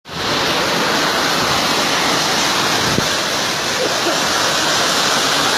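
Heavy monsoon rain pouring down: a loud, steady rushing hiss.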